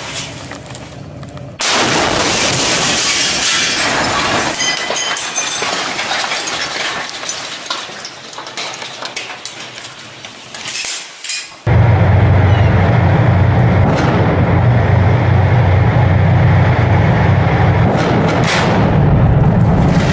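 A tank shell explodes about one and a half seconds in: a sudden loud blast followed by several seconds of noise that slowly dies down. About twelve seconds in the sound cuts abruptly to a loud, steady low rumble.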